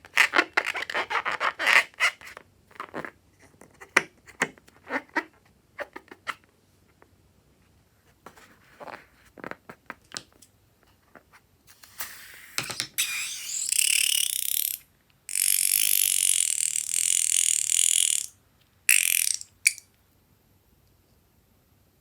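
Slime being worked and squished: a run of sticky clicks and pops, then two long stretches of hissing crackle about halfway through and a short burst near the end.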